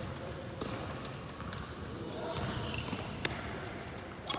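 Fencers' footwork on a hard floor: irregular thuds with a few sharp knocks scattered through, and faint voices in the background.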